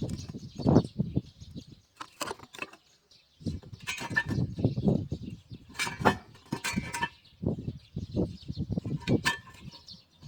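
Irregular knocks and clatter of objects being handled, with sharp clicks among them, and birds chirping faintly in the background.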